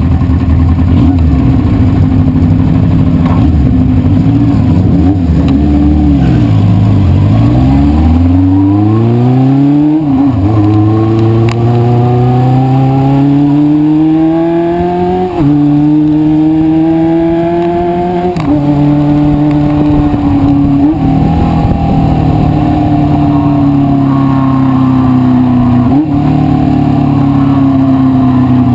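1973 Honda CB500 Four's air-cooled inline-four engine on the move. It slows to a low pitch, then accelerates through the gears: the pitch climbs and drops sharply at three upshifts. Afterwards the pitch falls slowly as the throttle eases, with a brief dip near the end.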